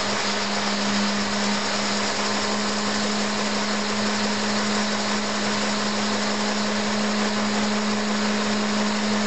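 Vacuum cleaner running steadily and noisily: a constant low hum under a rushing hiss of air through the hose that is powering a Lego model steam engine.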